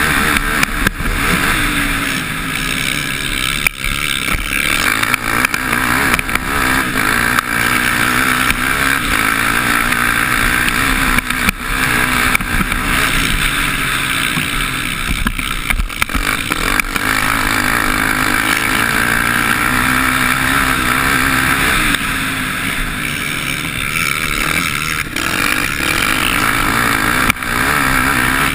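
Motocross bike engine running hard on the track, heard close up from the bike itself. The revs drop briefly every few seconds and climb again.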